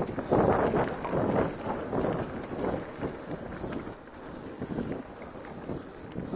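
Mountain bike rolling over a dirt singletrack trail: tyre noise with light rattles and clicks from the bike, louder for the first few seconds and then easing off.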